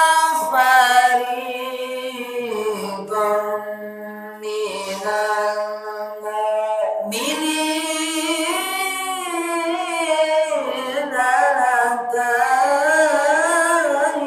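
A voice singing or chanting in long, drawn-out notes that waver and bend in pitch, with short breaks between phrases.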